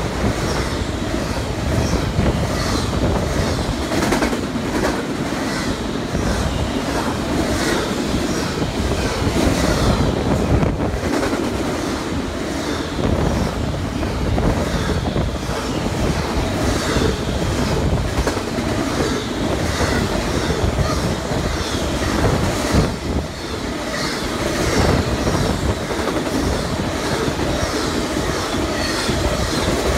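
Intermodal freight train passing close by: a steady heavy rumble with rapid, repeating clacking of steel wheels over the rail joints.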